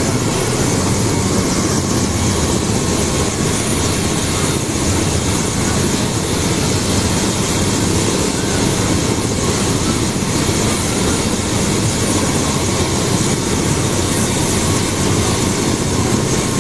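Light turbine helicopter running on the ground with its four-bladed main rotor turning, a loud steady noise of engine and rotor that holds at the same level throughout.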